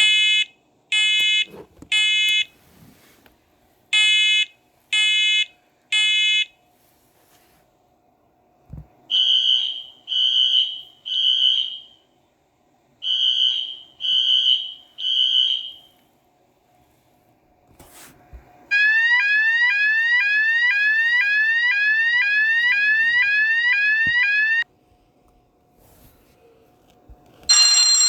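Several different fire alarm signals play one after another. First a harsh electronic horn beeps in two groups of three, the temporal-three evacuation pattern. Then a purer, higher tone beeps in two groups of three longer beeps. After that a rapid whoop of rising sweeps comes about twice a second for six seconds, and near the end a new continuous alarm tone starts.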